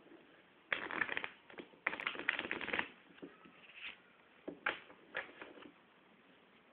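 A deck of playing cards being shuffled by hand: two quick runs of rapid fluttering clicks, each about a second long, then a few single snaps and taps as the cards are bridged and squared.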